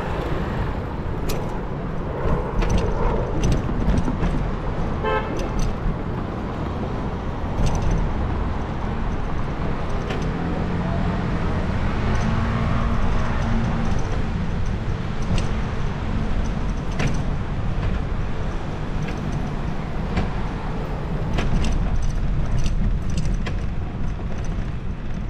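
Cycling through traffic: a steady wind rumble on the microphone and road noise, with scattered rattling clicks. About five seconds in there is a brief pitched ringing, and around twelve seconds a held horn-like tone.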